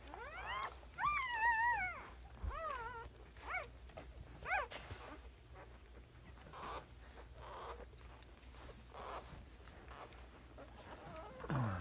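Newborn puppies whimpering and squealing: a string of high, wavering cries over the first five seconds or so, then fainter sounds.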